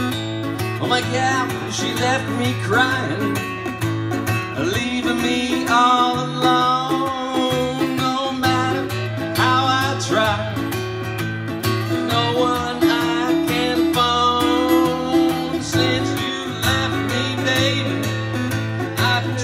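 Acoustic guitar strummed in a live, amplified country-style song, with a melody line that bends and wavers above steady low bass notes.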